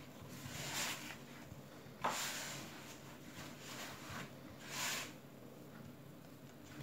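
Fingertips working crumbly sablé dough of butter, sugar and flour against a plastic bowl: a soft rubbing and scraping rustle, with three louder swishes spread through it.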